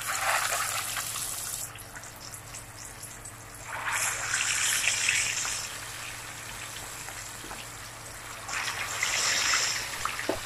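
Marinated chicken pieces sizzling in hot oil in a frying pan. The sizzle flares up three times, near the start, about four seconds in and about nine seconds in, as each new piece goes into the oil.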